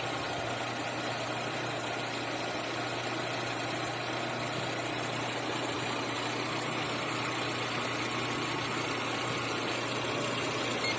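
Car engine idling steadily, with an even hiss over it.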